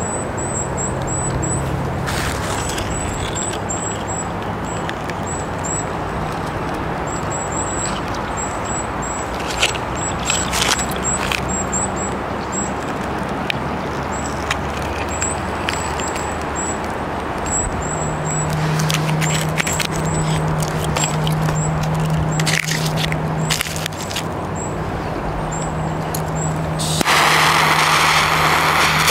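Steady outdoor background noise with a low hum and scattered light clicks from handling. About 27 seconds in, the fuse of a Black Thunder Italian firecracker is lit and hisses loudly.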